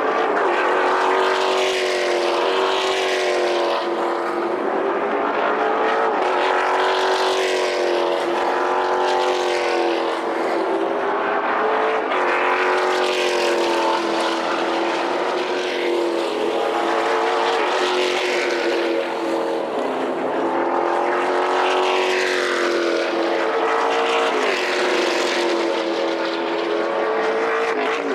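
NASCAR México stock cars running at high revs, several engine notes overlapping. Their pitch swells and dips without a break as the cars pass one after another.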